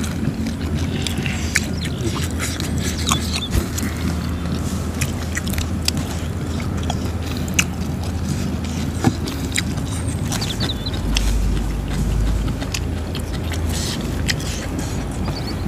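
Close-up eating sounds: chewing and crunching of raw vegetables, with many small clicks throughout over a steady low rumble that grows a little louder late on.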